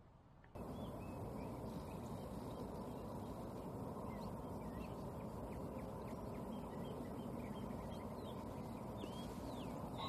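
Many short bird chirps over a steady background of outdoor noise, which starts abruptly about half a second in.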